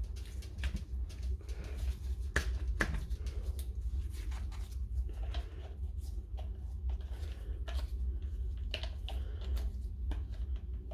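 Small clicks and light taps of parts being handled and fitted while the SDS chuck of a DeWalt DCH273 rotary hammer is put back together, with two sharper clicks a couple of seconds in, over a low steady hum.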